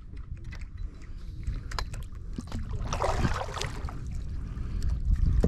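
Wind buffeting the microphone with a steady low rumble, and water moving around a kayak. A few light clicks come near the middle, and a short rush of noise follows about three seconds in.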